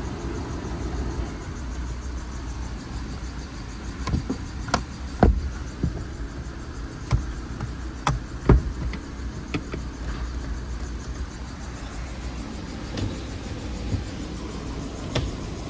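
Ford Explorer 3.5L V6 idling with a steady low hum, heard from inside the cabin. Over it come sharp clicks and knocks from interior controls being worked: dash buttons, the sun visor and its mirror cover, and the door switches. The clicks bunch up between about four and ten seconds in, with a few more near the end.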